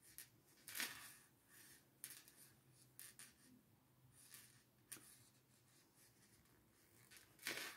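Faint rustling and scratching of yarn and a crochet hook working a single crochet join through the panel edges: a handful of brief soft scrapes, the loudest about a second in, over near silence.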